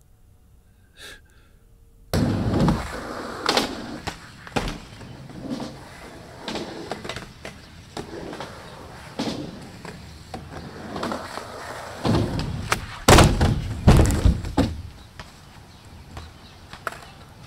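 Skateboard on concrete: wheels rolling, with repeated clacks and thuds of the board from tricks and landings. It starts suddenly about two seconds in, and the loudest slams cluster about three-quarters of the way through.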